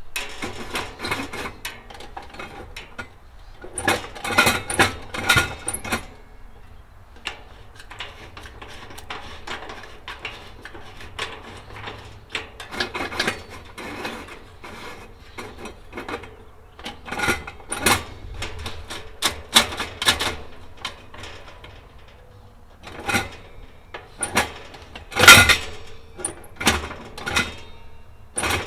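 Irregular mechanical clicks, knocks and rattles of the Kero-Sun Omni 85 kerosene heater's lever and knob controls being worked by hand during an igniter test, with the loudest knocks about 25 seconds in. No igniter spark is heard: the igniter is not working.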